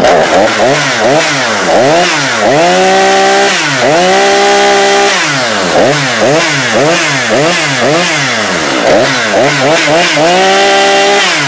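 Husqvarna 440's 41 cc two-stroke chainsaw engine being revved: quick throttle blips about once a second, with three stretches held at high revs, then dropping back toward idle near the end.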